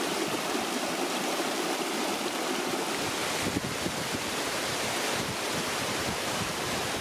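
Small snowmelt mountain stream cascading over rocks: a steady rushing splash of water.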